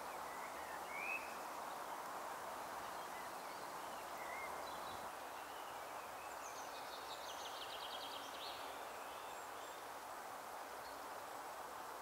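Small birds calling over a steady background hiss of outdoor ambience: a couple of short high chirps in the first few seconds, then a rapid high trill lasting about two seconds a little past halfway.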